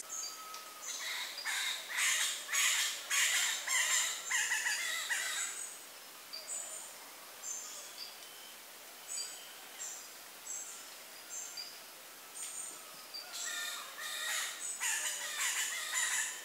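A group of Kenya coast dwarf galagos calling. Rapid high chirps come in dense runs for the first five seconds and again near the end, with scattered single chirps in between. These are the morning calls a group makes as it gathers to spend the day in the trees.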